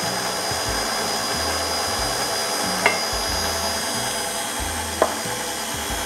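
KitchenAid Artisan stand mixer running steadily at a turned-down speed, its beater working cake batter as flour is added. Two short clicks, about two seconds apart, midway and near the end.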